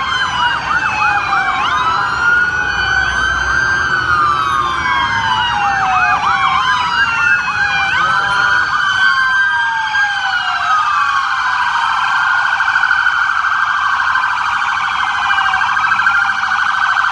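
Several police and emergency-vehicle sirens sounding together. Slow wails overlap, each sliding down in pitch and jumping back up. From about halfway through, a fast warbling yelp takes over.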